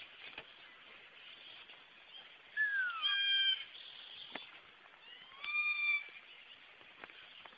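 An animal calling twice, loud and high-pitched, about two and a half seconds apart: the first call falls in pitch, the second rises and then holds.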